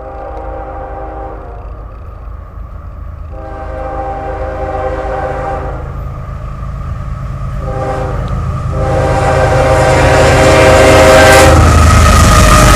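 Approaching train's locomotive horn sounding the grade-crossing signal: two long blasts, a short one, then a long one. The low rumble of the train grows steadily louder as it nears.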